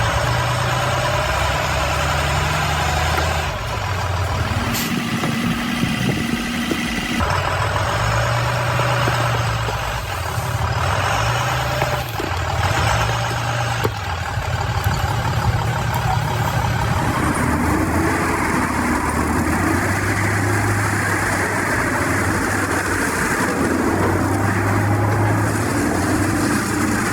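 Heavy vehicle engine running steadily, its sound changing abruptly several times.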